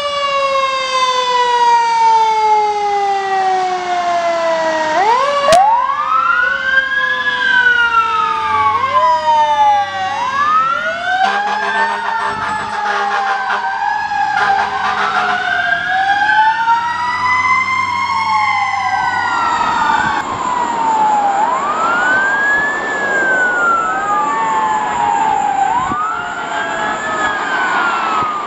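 Fire engine siren sounding as the truck pulls out: a long falling tone at first, then a wail rising and falling every two to three seconds.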